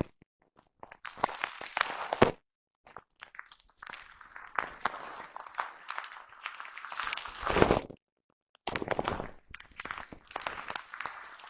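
A brush stroked and scrubbed close against a foam microphone cover, giving scratchy, crackling rustles in several passes with short silent breaks between them.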